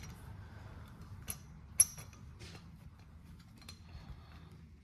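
Scattered light metallic clicks and taps from hands working rocker-arm parts out of a TTR 125's aluminium cylinder head, with one sharper click a little under two seconds in.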